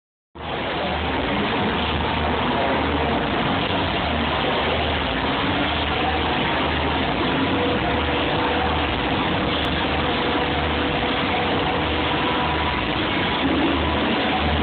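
Motorcycle engines running steadily inside a motorcycle globe, a dense continuous engine noise over a regularly pulsing low throb.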